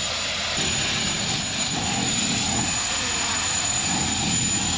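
Abrasive sandblaster running continuously: a loud, steady hiss of compressed air and grit from the blast nozzle, with a thin high whistle over it, as rust is stripped from steel columns.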